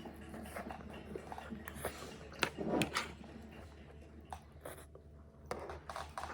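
Eating sounds: chewing with scattered small clicks and taps, over a low steady hum.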